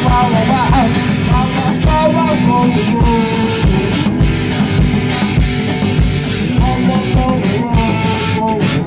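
Improvised garage rock played as an instrumental: distorted electric guitar over drums with a steady kick-drum beat about twice a second and frequent cymbal hits. A lead line of bending, wavering notes runs above them.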